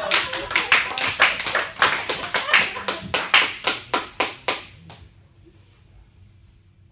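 Small audience applauding, the clapping thinning out and stopping about five seconds in; after that only a faint steady hum remains.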